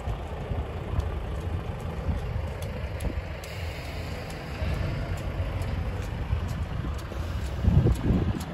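Wind buffeting the microphone as a low rumble, with a stronger gust about eight seconds in.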